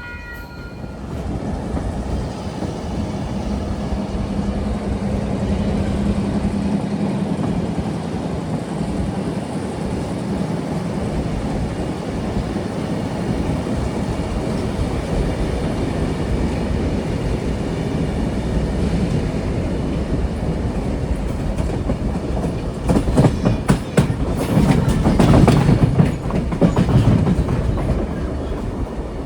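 Train running on the rails: a steady rumble with a low drone, then a louder stretch of clacking and knocking about 23 seconds in as the wheels cross rail joints. A horn cuts off at the very start.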